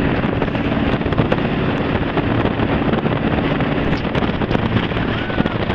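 Jet boat running at speed over choppy river water: a steady engine drone under heavy wind buffeting on the microphone and rushing water.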